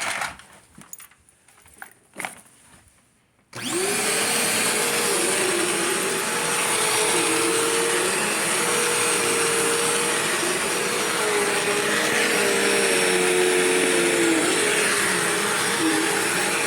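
A few light handling clicks, then a Bissell CleanView upright vacuum cleaner switches on about three and a half seconds in and runs steadily on carpet, its motor whine wavering a little in pitch as it works.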